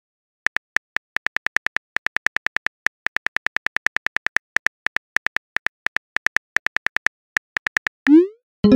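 Phone keyboard typing sound effect: rapid, evenly spaced key clicks, about seven a second, with a few short pauses. Near the end a short rising swoosh, the message-sent sound.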